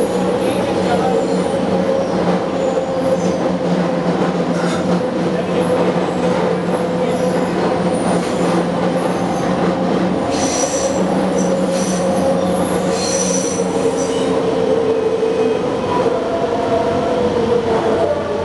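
Interior of a Scarborough RT ICTS Mark I car running along the line: a steady motor hum and whine from its linear-induction propulsion over wheel and track noise. Two brief high wheel squeals come near the middle, and near the end the whine begins to fall in pitch as the train slows.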